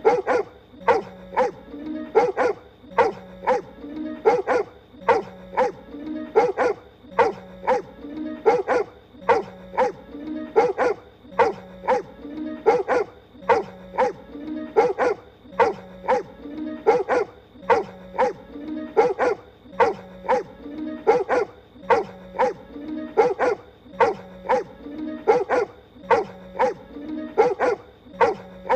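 A cartoon pony barking like a dog, short yapping barks in quick succession, over background music. The same couple of seconds repeats as a loop.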